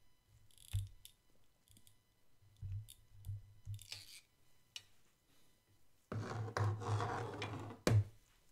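Kitchen tongs with silicone tips clicking and tapping lightly against a ceramic plate and the pancakes, a few short knocks. Near the end comes about two seconds of louder scraping noise, ending in a sharp click.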